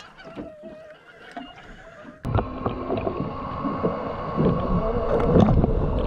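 Underwater sound picked up by a camera below the surface: muffled, dense rushing and gurgling water that starts suddenly about two seconds in and is loudest near the end, as a bull shark thrashes at the surface taking a hooked bonito. Before it comes a short, quieter stretch of faint spinning-reel handling above water.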